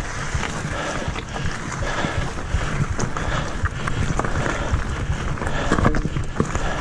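Mountain bike riding over a rocky dirt singletrack: steady tyre rumble with frequent small knocks and rattles as the bike runs over stones and roots. Wind buffets the microphone.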